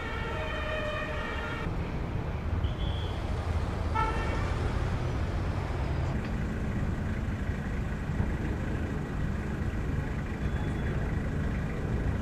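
An emergency-vehicle siren sounding a steady held tone, which cuts off abruptly in the first two seconds. It is followed by outdoor noise and the low, steady running of a heavy vehicle's engine, with two short high beeps.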